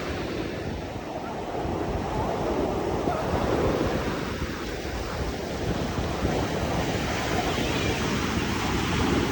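Ocean surf washing onto a beach, with wind buffeting the microphone.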